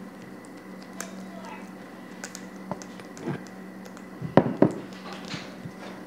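A small ceramic bowl being handled and set down on a kitchen countertop: a few light clicks and taps, then two sharp knocks close together about four seconds in, over a steady low hum.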